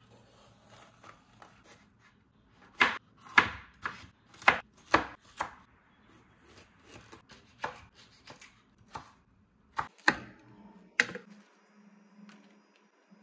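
Knife chopping vegetables on a cutting board: a quick run of about six sharp chops a few seconds in, then scattered single chops, the last loud one near the end.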